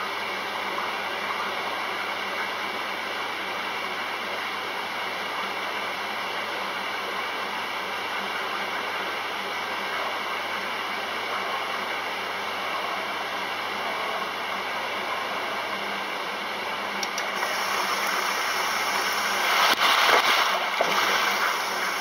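Maytag commercial top-load washer running, a steady rushing whir that swells louder near the end.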